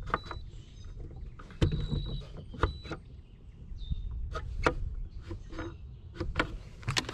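Clicks of buttons on a Minn Kota Ultrex trolling motor's foot pedal pressed by hand, with a few short high beeps, over low wind and water noise. No motor hum follows: the prop is not turning, a fault traced to a burnt, split wire to the motor's brush.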